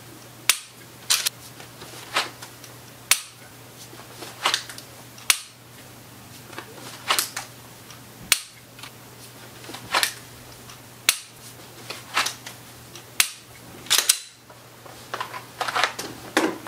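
Repeated dry-fire draw strokes with an unloaded pistol: sharp clicks about one a second, in repeating groups, as the pistol comes out of and goes back into a Kydex holster and its trigger is pressed on an empty chamber. Clothing rustles near the end.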